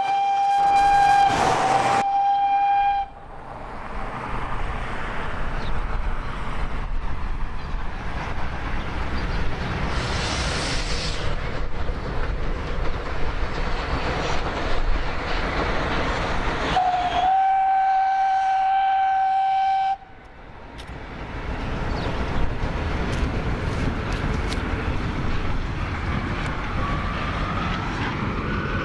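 Small steam tank locomotive hauling a train past, giving two long whistle blasts of about three seconds each, one at the start and one a little after halfway, over the steady rumble of the engines and carriages running on the track. A brief hiss comes about ten seconds in.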